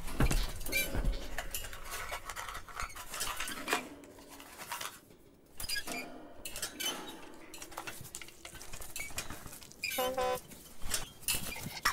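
Foley sound effects: a run of small dry clicks, taps and scrapes, with a short, pulsed, pitched bird squawk about ten seconds in.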